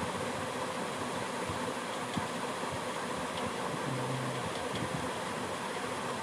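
Steady background hiss and room noise, with a brief low hum about four seconds in.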